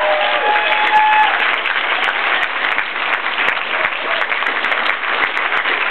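Audience applauding steadily, many hands clapping, with a few drawn-out cheers dying away in the first second or so.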